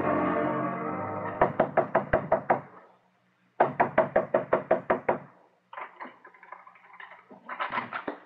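A music bridge fades out, then a radio sound effect of rapid knocking on a wooden door: two quick rounds of about eight knocks each, with a short pause between. Fainter clatter follows as the door is opened.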